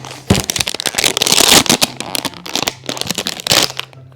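Toy packaging being handled and opened: plastic and cardboard crackling and crinkling in dense runs of sharp clicks, loudest in the middle and dying down near the end.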